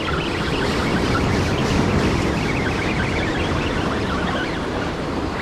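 Ocean surf breaking and washing over jetty rocks close by: a steady rush of churning water.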